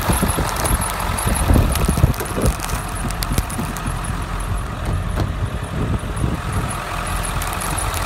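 A truck engine idling steadily, with gusts of wind buffeting the microphone in the first few seconds.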